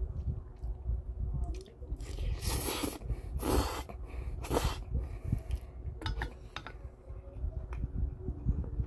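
A person slurping and chewing Paldo bibimmyeon cold spicy noodles, with three loud slurps between about two and five seconds in and chewing around them.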